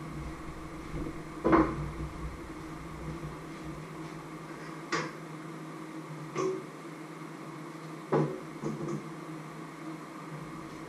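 Pots and kitchenware being handled: five or six sharp knocks and clinks, the loudest about one and a half seconds in, over a steady appliance hum.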